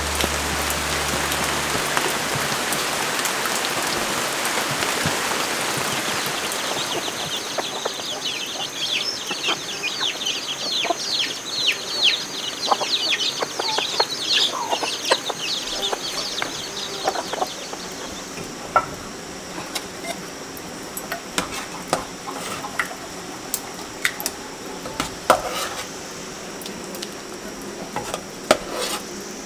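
Rain hissing steadily, then birds chirping rapidly for about ten seconds. From around two thirds of the way in come scattered clicks and clinks of a spoon against a ceramic bowl.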